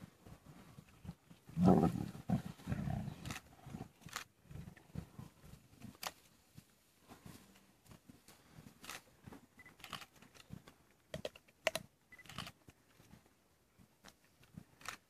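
Lions growling at one another while squabbling over the last of a warthog carcass, with one loud outburst about two seconds in. Scattered short sharp clicks follow.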